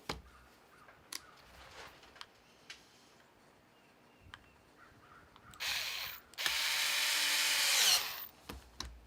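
Scattered light clicks of small parts being handled. Then, about five and a half seconds in, a Ryobi cordless screwdriver runs twice, briefly and then for about a second and a half, driving screws back into a plastic bar clamp's housing. The second run drops in pitch as it stops.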